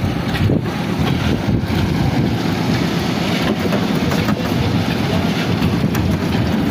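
Concrete mixer and hoist machinery running steadily on a roof-slab pour: a dense low mechanical drone with a few light knocks.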